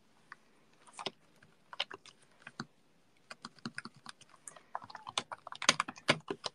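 Typing on a computer keyboard: irregular keystrokes, sparse at first, with a quick run of them near the end.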